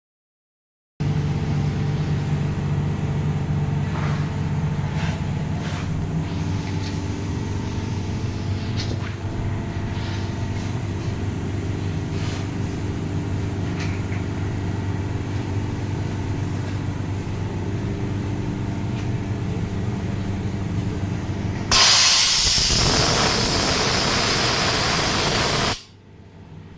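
Air compressor running with a steady motor-and-pump hum that starts abruptly about a second in. Near the end a loud hiss of escaping compressed air takes over for about four seconds, then cuts off suddenly.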